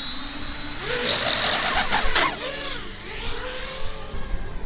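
FPV quadcopter's motors and propellers spinning up from idle for takeoff: a whine that rises sharply about a second in and stays loud for about a second, then wavers up and down in pitch and fades as the quad flies off.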